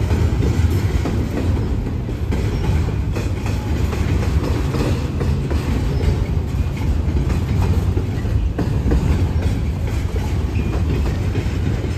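Double-stack intermodal container cars of a freight train rolling past: a steady, heavy rumble of wheels on rail with irregular clicking as the wheels cross the rail joints.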